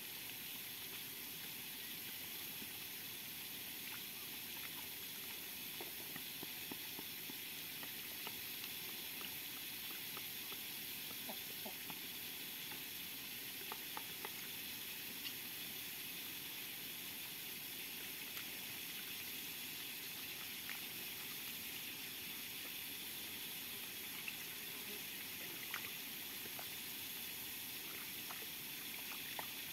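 Muscovy duck dabbling its bill in a shallow muddy puddle, with chickens pecking feed from a plastic tray: scattered soft wet clicks and small splashes over a steady faint hiss.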